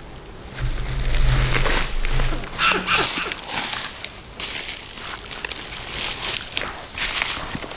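Irregular crunching and rustling of dry leaves and forest litter, coming in short uneven bursts, with a low rumble under it for a couple of seconds near the start.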